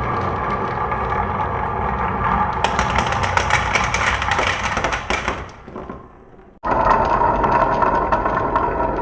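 Glass marbles rolling and clattering through a wooden marble run, a steady rumble full of small clicks. It fades away about five and a half seconds in, then starts again abruptly about a second later.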